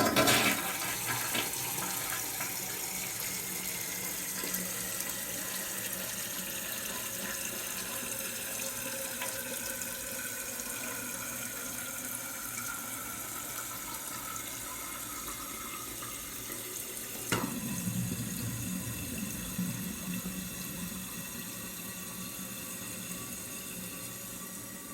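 Toilet refilling after a flush: water rushes steadily through the fill valve, with a faint whistling tone that slowly falls in pitch. About 17 seconds in there is a sudden louder gurgling rush of water, and the refill then eases off gradually.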